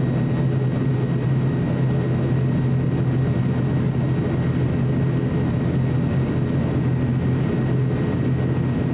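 ATR 42-600's Pratt & Whitney PW127 turboprop engines and propellers running steadily while the airliner taxis, heard inside the cabin: a strong low propeller hum with a faint high whine on top.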